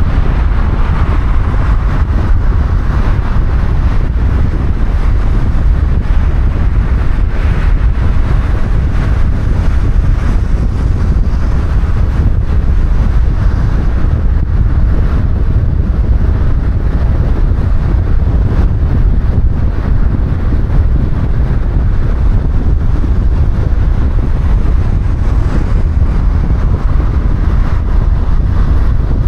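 A car driving at speed: a steady, loud low rumble of tyre and wind noise, with no sudden events.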